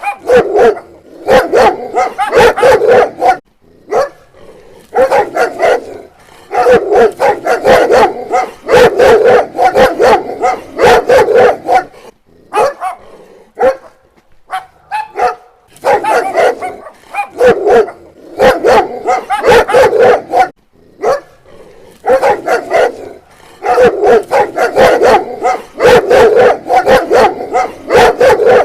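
Dog barking in rapid volleys, loud runs of barks lasting a few seconds each with short pauses between them.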